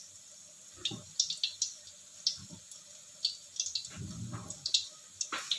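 Battered cempedak fritters with a cheese filling deep-frying in oil in a wok, the oil crackling and spitting in short, irregular pops.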